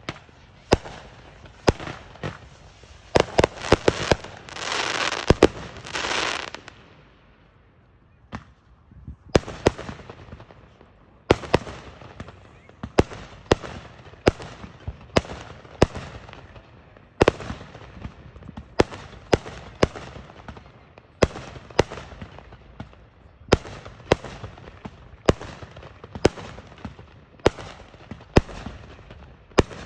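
Fireworks show: a quick cluster of sharp bangs, then a loud hissing crackle for about two seconds, a short lull, and a steady run of single sharp bangs about one a second.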